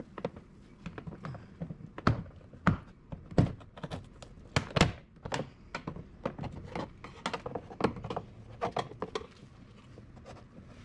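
Irregular knocks, taps and clicks of hand tools and metal parts being worked inside a car door while its bolts are taken out, the loudest knocks coming about two to five seconds in.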